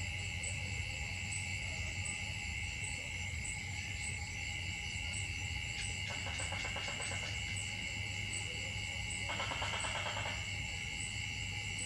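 Steady high-pitched drone of a chorus of forest insects, held on a few even tones, over a low steady hum. Two short pulsing buzzes rise over it in the second half, each lasting about a second.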